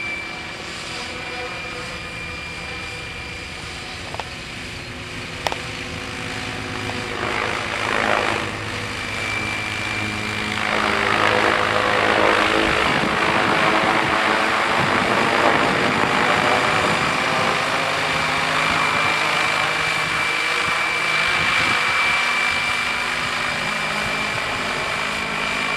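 Tazer 800 radio-controlled helicopter in flight: steady rotor and drive drone with a thin high whine. It grows clearly louder about ten seconds in, with a dense rushing blade noise.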